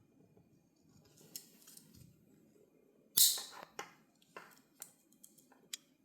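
Tools of a 91 mm Victorinox Swiss Army knife being handled: a louder metallic snap about three seconds in, then a few small, light clicks.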